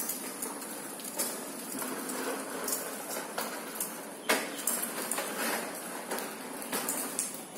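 Hard plastic wheels of a child's ride-on toy car rolling and rattling over a tiled floor as it is pushed, with a sharp knock about four seconds in.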